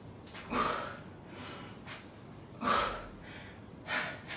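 A woman breathing hard under exertion during a side plank exercise: several short, sharp breaths, about one a second.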